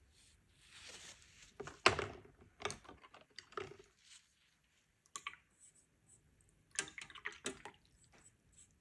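Watercolour painting tools being handled: a series of small, sharp knocks and clicks in several clusters, the loudest about two seconds in.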